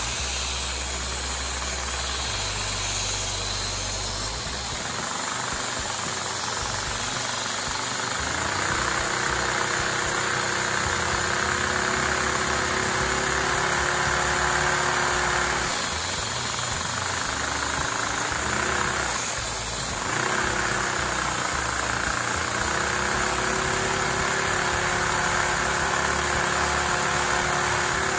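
Handheld vacuum cleaner running steadily, its suction driving an inline-four LEGO vacuum engine whose plastic parts clatter as it spins. The hum sags and recovers twice around the middle.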